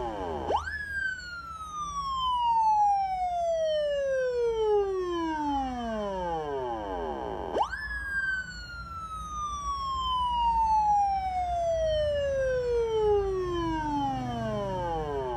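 Electronic police-style wail siren (còi hú) sounding: each cycle shoots up in pitch in about half a second, then slides slowly down for about seven seconds, two full cycles.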